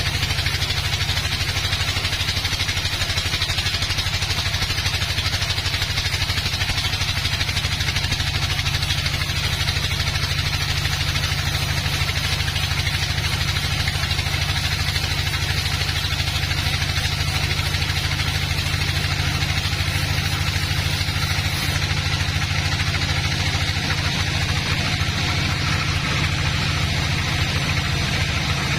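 Sawmill's engine running steadily at an even speed, a constant low hum with no change through the stretch.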